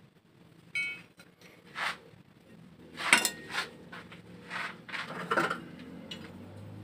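Hardened spring-steel knife blade striking small nails in a hardness test of its quench: a sharp metallic clink about a second in that rings briefly, then about six more sudden metal-on-metal strikes.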